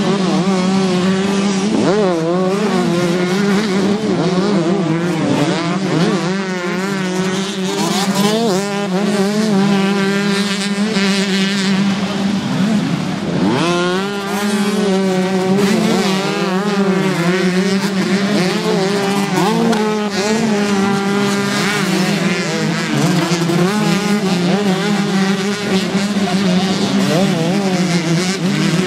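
Several 125cc two-stroke motocross bikes racing. Their engines rev up and down with each throttle and gear change over a constant engine drone, and the notes overlap as riders pass close by.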